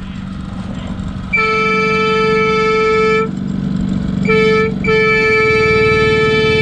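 Ride-on miniature locomotive sounding a single-pitched signal in three blasts: a long one about a second in, a short one, then another long one that is held on. A low steady rumble runs underneath.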